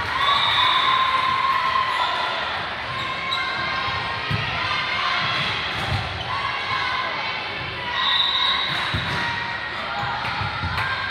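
Volleyball rally in a gym: the ball is hit with a few dull thuds as players bump and set it, under echoing voices of players and spectators.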